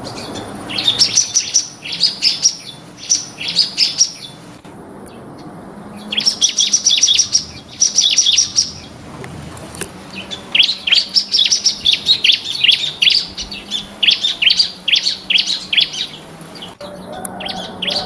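Bar-winged prinia (ciblek) song: long runs of rapid, high chirping notes in three bursts, broken by short pauses.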